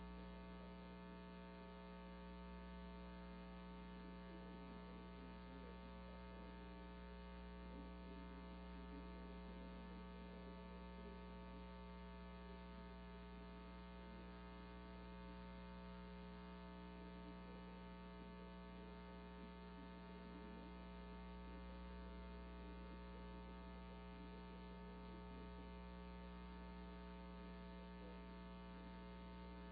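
Steady low electrical hum with its many overtones and nothing else: mains hum on the audio line, with no arena sound coming through.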